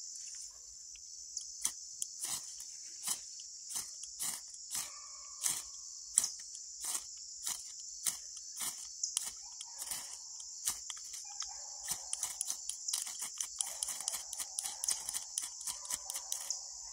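A half-inch Bayite ferro rod scraped again and again with its striker, short sharp strikes at first about one a second and coming faster in the second half. The sparks are not catching the pulverized fire-starter dust.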